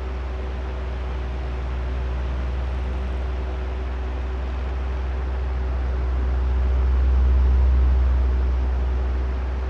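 Electric oscillating fan running: a steady rush of air from the blades over a deep rumble and a faint motor hum. The sound swells and fades as the fan head turns, loudest about three quarters of the way through.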